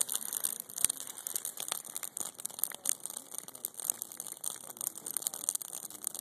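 Burning Christmas tree, its dry needles and twigs crackling with dense, irregular pops, one louder pop about a second in.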